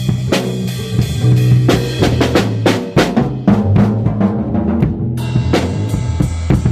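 Music driven by a drum kit: kick, snare and rimshot hits over a sustained bass line. The high end drops out for about a second and a half midway, then the full mix returns.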